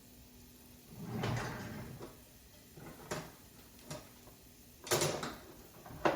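Kitchen handling sounds: a few separate knocks and short scraping rustles, the loudest about five seconds in, like a drawer or cupboard being worked and utensils being moved.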